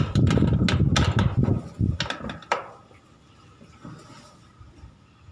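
Clicking, knocking and rattling of hands working inside the tumble dryer's cabinet to remove the motor capacitor. It lasts about the first two and a half seconds, then drops to faint handling noise.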